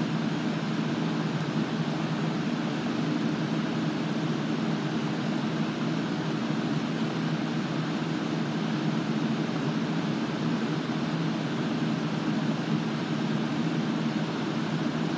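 A steady low drone with a faint hum in it, unchanging throughout.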